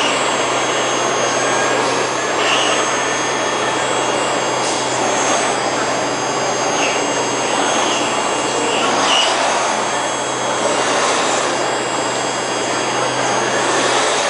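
Five-axis CNC machining center's spindle milling a car-shaped model: a steady rushing cutting noise with several high, steady whining tones over a low hum. A few short, high chirps come through as the cutter bites.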